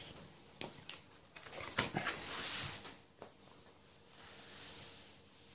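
Plastic sleeve pages of a trading-card binder rustling as a page is turned, with a few small clicks and two soft swells of crinkling.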